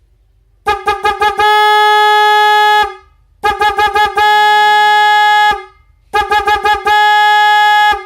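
Bosch Evolution snail-type electric horn sounding on its own, one horn of a 410 Hz / 510 Hz pair. It gives three rounds of four quick beeps, each followed by a long blast of about a second and a half, all on a single steady note.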